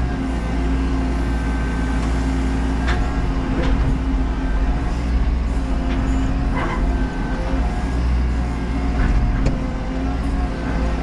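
Menzi Muck M335 walking excavator's diesel engine running steadily under hydraulic load as the boom is worked, heard from inside the cab. A few short sharp knocks sound over the drone.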